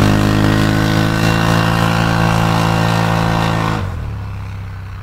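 Off-road side-by-side's engine held at high, steady revs, then fading out about four seconds in.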